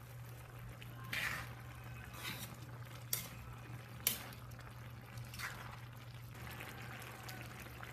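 Pot of squash and vegetables in coconut milk simmering, bubbling with about five sharp ticks or pops spread through, over a steady low hum.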